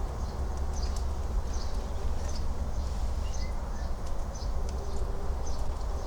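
A bird calling over and over in short high chirps, about twice a second, over a steady low rumble.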